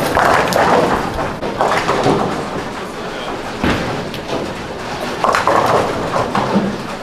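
Bowling alley noise: balls rolling down the lanes and pins clattering in irregular bursts, with one sharp knock a little over three and a half seconds in.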